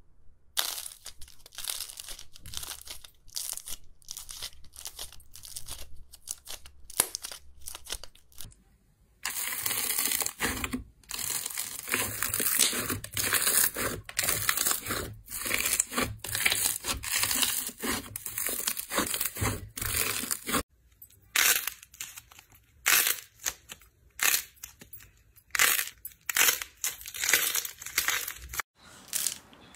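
Slime being pressed and squeezed by hand, giving many short sticky clicks and pops. The pops are spaced apart at first, come thick and fast through the middle, and are spaced apart again in the last third.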